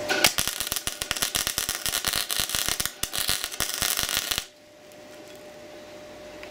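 Wire-feed (MIG) welder arc crackling and spitting while laying a tack weld on square steel tube, in two runs with a brief break about three seconds in, then cutting off suddenly at about four and a half seconds.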